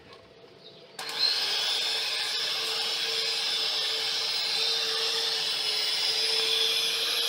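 Electric hand mixer switched on about a second in and then running steadily, a motor whine as its beaters whip thick chocolate buttercream icing.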